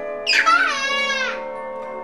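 A toddler's high-pitched cry, gliding up and then falling away, starting about a quarter second in and lasting about a second. Background music with sustained tones plays throughout.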